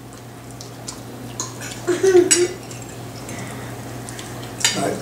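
Forks and utensils clinking and clattering against plates and a serving bowl, a few scattered clicks with the loudest clatter near the end.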